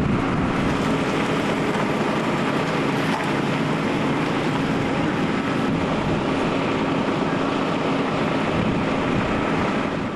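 Idling emergency vehicle engines: a steady hum and rumble that stays even throughout.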